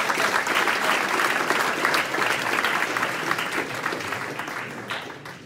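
Audience applauding, a dense steady clapping that fades slightly near the end.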